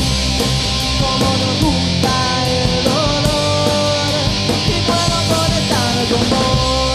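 Rock band playing an instrumental passage: distorted electric guitars over a drum beat, with a lead line of held notes that slide up and down in pitch.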